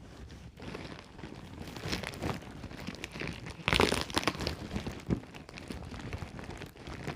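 Plastic packaging crinkling and rustling as it is handled and opened, with a louder crackle about four seconds in.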